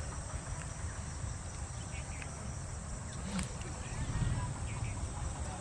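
Insects chirring steadily in a high, continuous band over a low rumble, with a faint click about halfway through.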